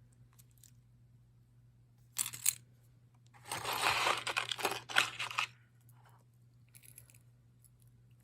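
Packaging being handled during unboxing: a short rustle about two seconds in, then about two seconds of crinkling and tearing.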